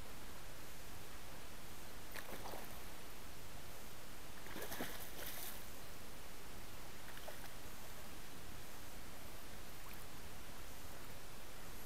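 Steady rush of a shallow river, with short splashes about two seconds in and again around five seconds in as a hooked fish thrashes at the surface.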